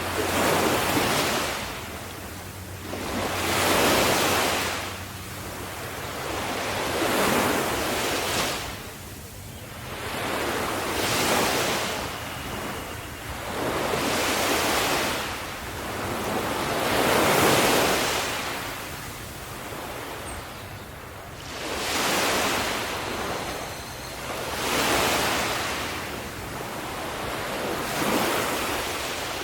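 Sea waves breaking and washing up on shore in a steady rhythm, one surge about every three seconds, each swelling and then draining away.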